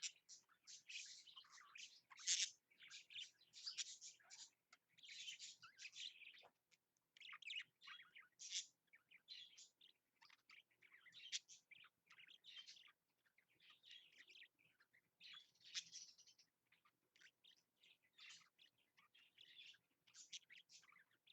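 Budgerigars chattering and warbling in a fast, continuous stream of short, high chirps with only brief pauses: courtship chatter during their mating display.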